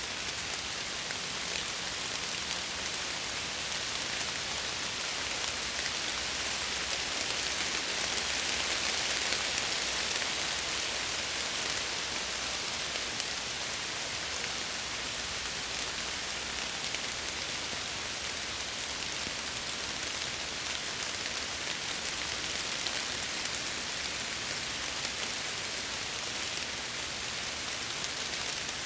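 Steady heavy rain pattering on window glass, an even hiss with fine drop ticks that swells slightly about a third of the way in.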